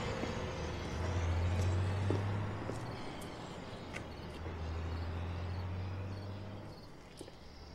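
A low, steady rumble that swells twice, first about a second in and again from about four and a half seconds in, then fades near the end.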